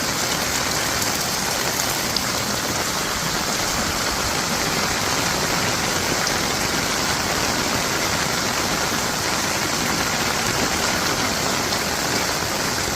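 Heavy rain falling steadily, a dense even hiss of drops on the ground and surfaces.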